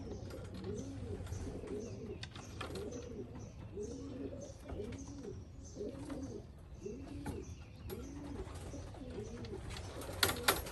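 Racing pigeons cooing over and over in low, arching notes, about one to two coos a second. A couple of sharp clicks sound near the end.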